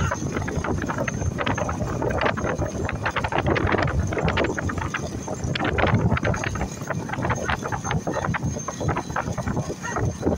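Bullock-cart race noise: a continuous rumble with dense, irregular clattering, and wind buffeting the microphone.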